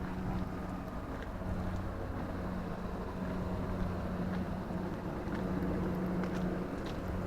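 Steady low hum of a stationary JR West 213 series electric train, with a second tone an octave higher that swells and fades over a noisy rush of fans and equipment.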